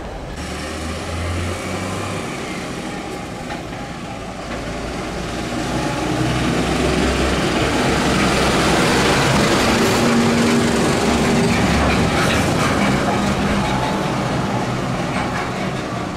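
Diesel engines of emergency vehicles driving slowly past. A van moves off first, then a blue THW Iveco Magirus truck passes close; its engine grows louder toward the middle and eases off as it drives away.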